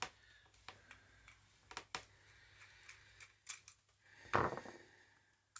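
Scattered small metallic clicks and taps from an old lever padlock being handled and opened up, with one louder clunk about four and a half seconds in.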